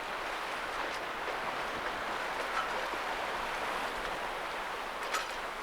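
Water rushing and splashing along a sailing boat's hull as it moves through a tidal race, a steady hiss, with one short click near the end.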